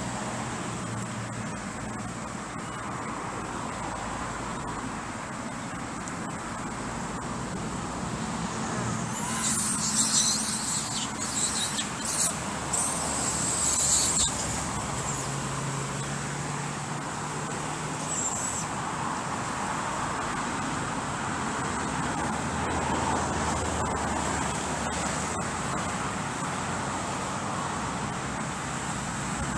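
Steady road traffic with the low hum of passing vehicle engines. About nine seconds in, a burst of loud high hissing lasts about five seconds, with a brief one again a few seconds later.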